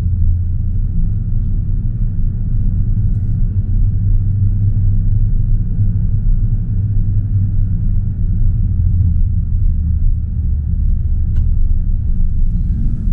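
Car engine and road noise from a moving car: a steady low rumble.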